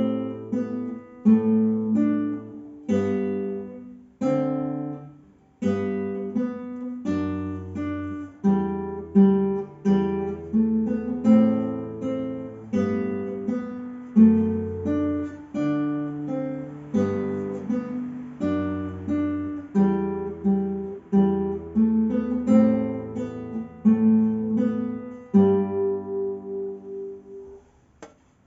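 Solo acoustic guitar playing a plucked melody with chords over low bass notes; the final chord rings and fades away near the end.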